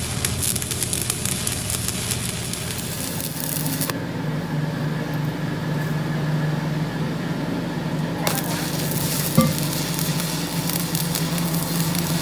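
Electric arc welding on a truck rear axle housing: a steady crackling sizzle from the arc. The crackle stops about four seconds in, leaving a steady low hum, and starts again about eight seconds in.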